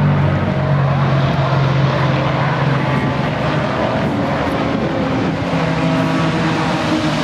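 Steady drone of distant piston engines, its pitch shifting slowly.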